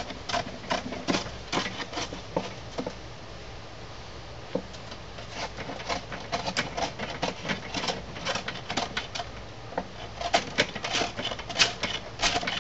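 Hand plane taking short, quick strokes across the end grain of a wooden workbench top to smooth it: a rapid, uneven run of crisp scraping ticks in bursts, with a quieter pause of a couple of seconds near the middle.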